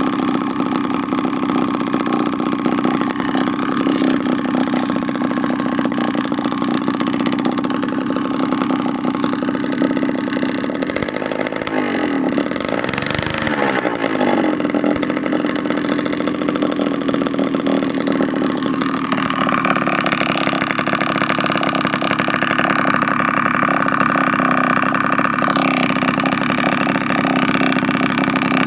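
Homemade mini two-stroke engine, converted from a refrigerator compressor, running steadily. Its note wavers up and down briefly near the middle, then settles at a changed pitch about two-thirds of the way through.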